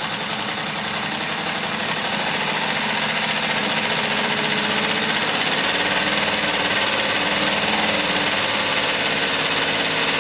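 Chaika-2 sewing machine running fast on its electric motor: a steady rapid mechanical clatter, picking up a little over the first couple of seconds. The newly fitted metal half-gear in the shuttle drive is still wearing in against its metal mate, with a sound judged quite tolerable.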